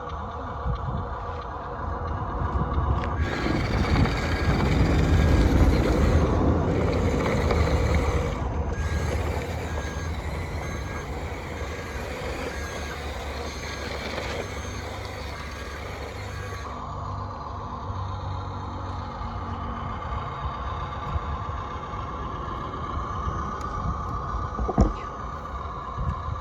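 Remote-control toy construction trucks working. A motor runs with a steady whine, and from a few seconds in to about two-thirds through there is a louder stretch of rumbling, rushing noise over a regularly repeating reversing beep. A single sharp knock comes near the end.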